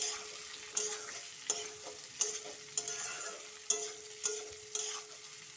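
A spatula stirring and scraping chicken curry with potatoes in a karahi, in regular strokes about every 0.7 seconds over the sizzle of the spiced oil frying.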